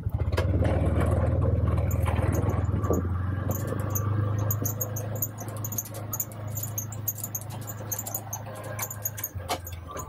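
Side-by-side utility vehicle's engine under load as it drives hard through snow drifts on a running start: a steady low drone, loudest in the first few seconds and easing after, ending about nine seconds in. Fast light ticking runs over it from about a third of the way in.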